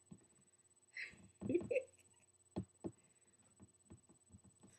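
A toddler's short wordless vocalization about a second in, a breath followed by a brief voiced babble. After it come about half a dozen soft, separate taps or knocks.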